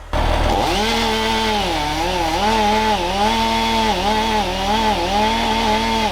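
Chainsaw revving up, then cutting into a crane-held tree section at full throttle, its engine pitch repeatedly dipping under load and recovering as the bar works through the wood.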